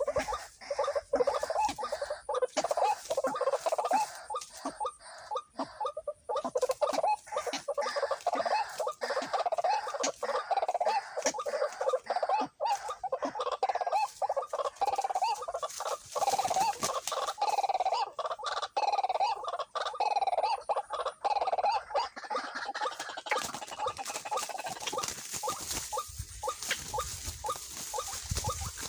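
White-breasted waterhen (ruak-ruak) calling: a fast, continuous run of short repeated notes that fades near the end.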